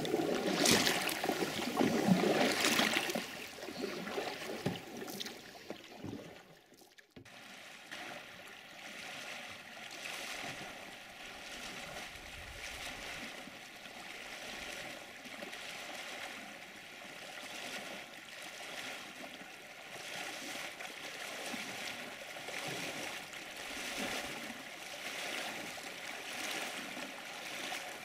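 Water splashing and sloshing around a canoe: louder, uneven paddle strokes at first, then, about seven seconds in, a quieter and more even rush of river water as the loaded canoe is waded upstream through the shallows.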